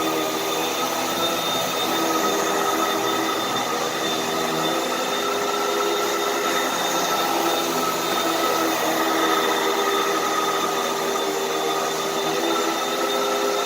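Hoover vacuum cleaner running steadily, its motor holding an even whine over a constant rush of air.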